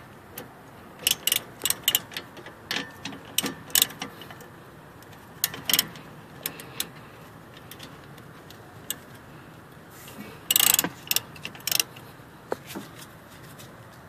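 Hand ratchet with a 14 mm socket clicking in short irregular bursts as it is swung back and forth on the rear brake caliper bolts, the loudest run of clicks near the end.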